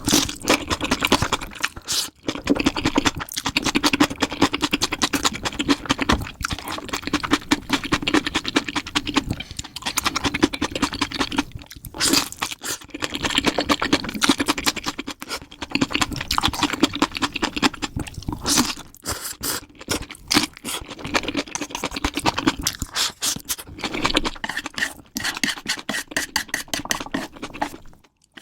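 Close-miked mukbang eating: rapid crunching and chewing, played back at double speed, with a few brief breaks.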